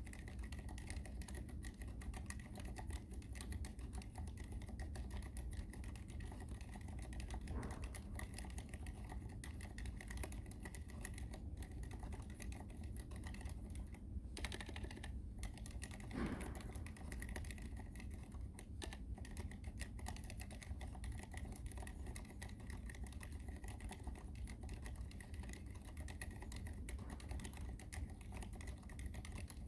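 Continuous fast typing on an ABKO AR87 full-aluminium mechanical keyboard with unlubricated Cherry MX Silent Red low-noise switches, one slightly heavier keystroke about halfway through.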